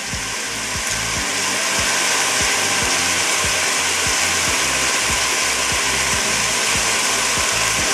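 Chopped onion, bell peppers, celery and garlic sizzling steadily in hot olive oil in a stainless steel pot. The sizzle grows a little louder about a second in.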